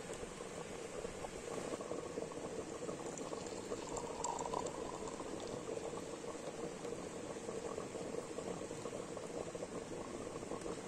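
Lamb stew boiling in a pot, a dense, steady bubbling with rapid small pops.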